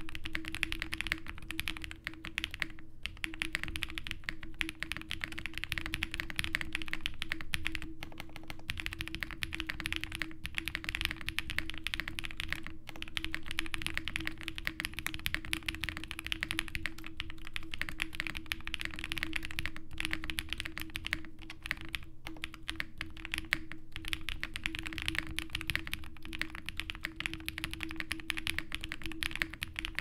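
Fast, continuous typing on a Zoom65 mechanical keyboard with lubed Durock POM linear switches and GMK Redacted ABS doubleshot keycaps, the case fitted with PE foam and plate foam. There are a few momentary breaks in the keystrokes.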